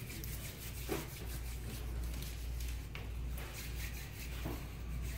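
Hands rubbing against each other, working in hand sanitizer before gloving, over a low steady hum with a couple of light knocks.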